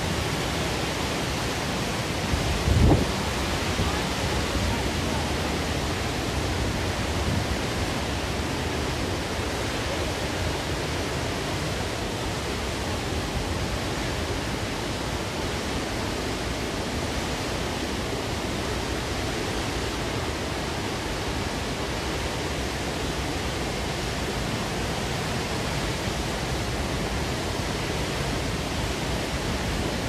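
Wide multi-tiered waterfall in heavy flow, water pouring over a rock ledge with a steady rush. A brief low thump about three seconds in.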